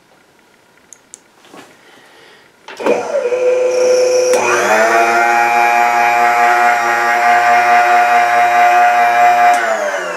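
Bridgeport mill's electric table power feed driving the table across: a motor whine starts about three seconds in, steps up in pitch about a second and a half later as the feed speeds up, holds steady, then winds down just before the end.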